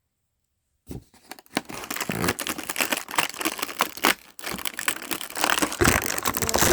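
Plastic and cardboard blind-pack packaging being torn open and crinkled by hand, a dense crackle of many sharp rustles that starts about a second in.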